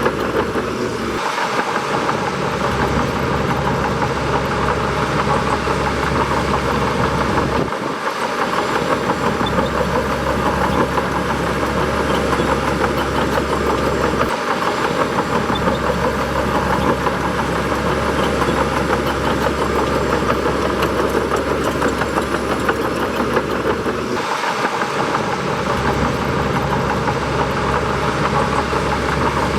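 Bulldozer's diesel engine running steadily under work. The deepest part of its sound drops out briefly four times.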